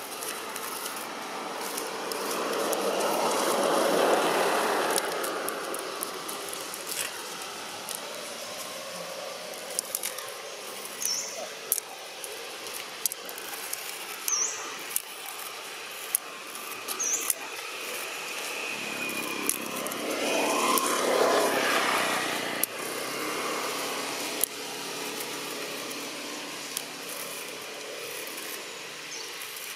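Two road vehicles passing by one after another, each rising to a peak and fading away over a few seconds, the first about four seconds in and the second near two-thirds through, with a few small clicks and short high chirps in between.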